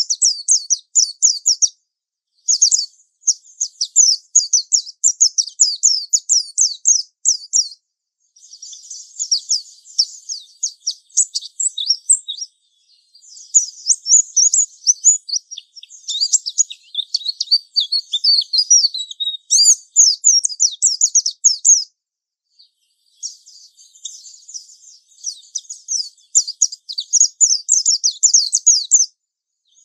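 White-eye (pleci) singing its long 'ngalas' song: fast, high twittering phrases several seconds long, broken by about four short pauses.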